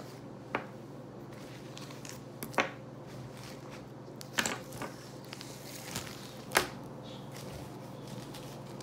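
Scattered short taps and clicks, about six in all, as small objects are handled on a hard tabletop, over a steady low hum.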